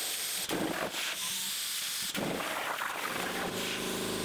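Steady hiss of air and steam at a CNC plasma cutting table while the torch moves between cuts, with a few short louder rushes in the first half. A steady hum of several pitches joins about three seconds in.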